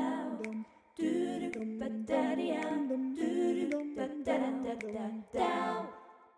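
Wordless a cappella vocal melody, sung or hummed in short phrases, playing as outro music and fading out near the end.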